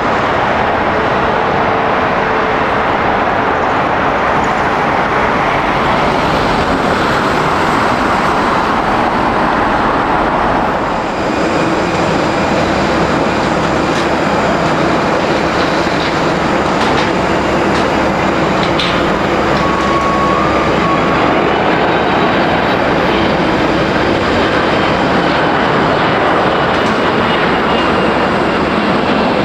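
Loud, continuous jet airliner engine noise close by. About eleven seconds in the sound shifts, and steady engine whine tones come through over the rush.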